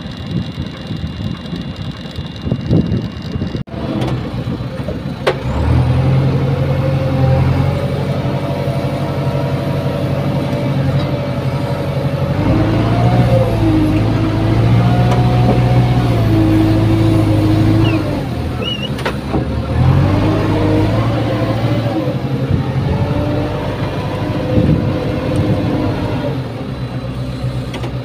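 JCB 3CX backhoe loader's diesel engine running, heard from inside the cab. Its note steps up about six seconds in, then rises and falls as the machine is worked.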